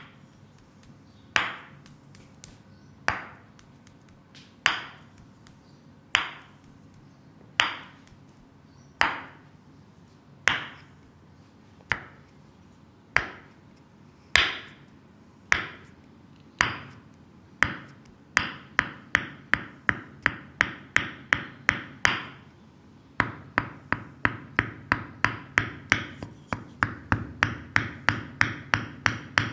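Percussive massage strikes on an oiled leg: sharp, ringing smacks about one every one and a half seconds, turning after about eighteen seconds into a quicker volley of about two to three strikes a second.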